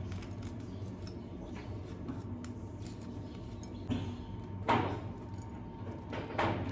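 Kitchenware clinking and knocking while breakfast is made: scattered light clinks, with a few louder clatters in the second half, over a steady low hum.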